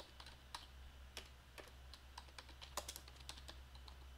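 Faint computer keyboard typing: irregular key clicks over a low steady hum.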